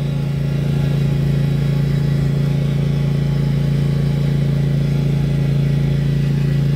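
A small utility vehicle's motor runs at a steady speed while driving along, making an even, unchanging low hum.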